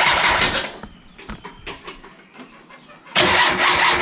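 1.6-litre Mazda Miata four-cylinder being cranked on the starter, a rhythmic churning that never fires, since the engine is getting no spark. The cranking stops under a second in, a few light clicks follow, then it starts cranking again abruptly about three seconds in.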